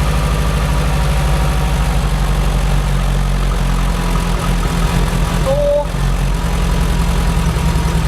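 Renault Clio's 2.0-litre four-cylinder petrol engine idling steadily during a misfire test in which the injectors are unplugged one at a time. The idle note hardly changes, with a brief dip about six seconds in.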